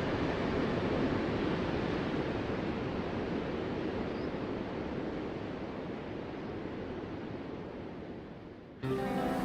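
Ocean surf washing ashore, a steady hiss of breaking waves that slowly fades. Near the end it cuts off abruptly and music with held tones comes in.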